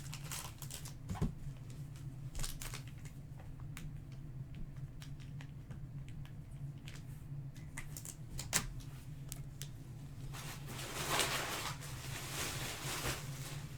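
Trading cards and foil card-pack wrappers being handled at a table: scattered light clicks and taps, then a crinkling rustle of about two seconds near the end.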